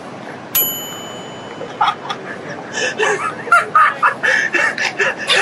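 A short bright ding about half a second in, then a man's high-pitched, squealing laughter in repeated bursts.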